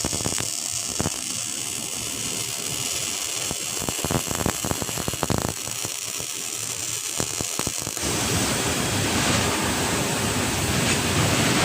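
Electric welding arc crackling and sizzling, with scattered sharp pops early on. About eight seconds in it changes to a louder, steadier hiss.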